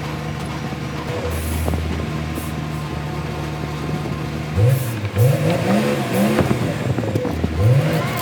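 Vehicle engine idling with a steady low hum, then revved in a series of short blips from about halfway through, the pitch rising and falling with each one.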